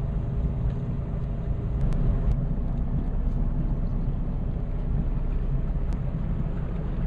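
Motorboat engine running steadily, a low even hum under a wash of wind and water noise.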